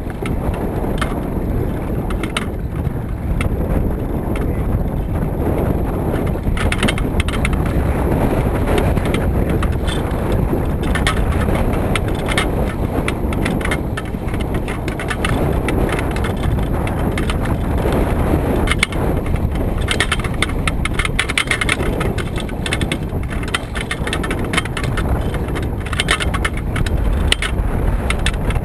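Strong gusting wind of about 20 mph rumbling on the microphone, with choppy water splashing against a canoe's hull in short crackles.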